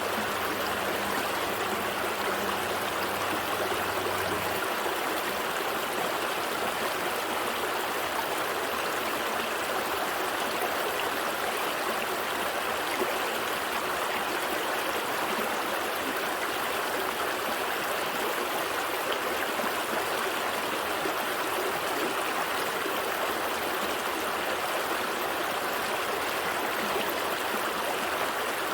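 Gentle stream flowing steadily, an even rushing of water with no breaks.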